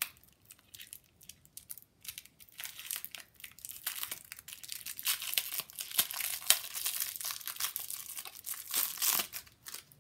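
Washi tape packaging crinkling and tearing as it is worked open by hand: a few light crackles at first, then dense crinkling from about two and a half seconds in until near the end.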